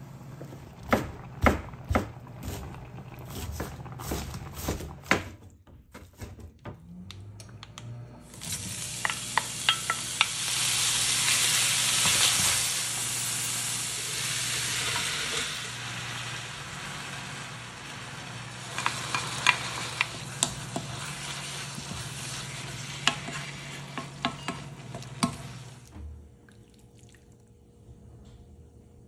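A few seconds of sharp utensil knocks and clicks, then from about eight seconds in chopped cabbage sizzling as it stir-fries in a pan, with a spatula clicking against the pan as it stirs. The sizzling stops a few seconds before the end.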